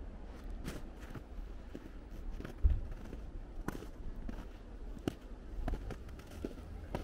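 Footsteps crunching on snow at a walking pace, with one low thump a little under three seconds in.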